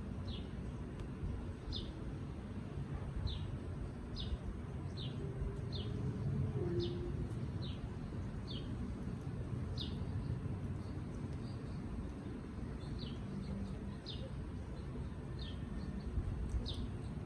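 A bird giving short, high, falling chirps over and over, roughly one a second, over a steady low rumble.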